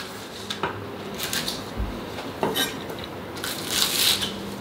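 Kitchen prep clatter: a handful of scattered knocks and clinks of utensils and dishes, with one dull thud a little under two seconds in.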